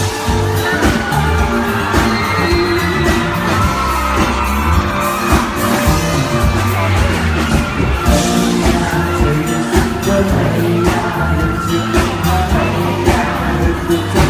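Live pop band playing with a singer's voice over it, and an audience yelling and whooping along.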